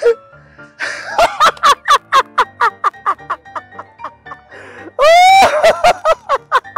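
A man laughing loudly and deliberately in rapid bursts, about four or five 'ha's a second, breaking into a long, high drawn-out laugh about five seconds in, over background music.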